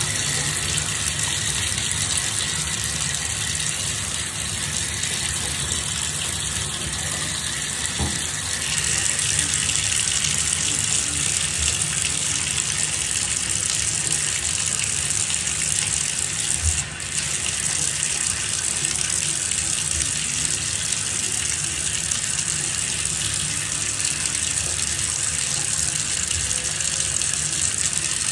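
Water running steadily into a bathtub during a baby's bath, a continuous gushing hiss that turns brighter and hissier about nine seconds in.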